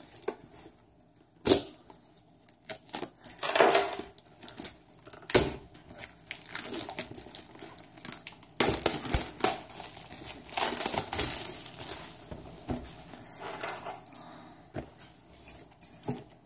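Yu-Gi-Oh! special edition card box being handled and opened: cardboard and plastic packaging rustling and crinkling, with a longer stretch of crinkling in the middle and two sharp knocks, about a second and a half in and about five seconds in.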